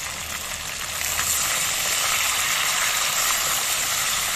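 Chicken pieces frying over high heat in hot oil in a non-stick frying pan, sizzling steadily. The sizzle swells about a second in, as ginger and garlic paste goes into the pan.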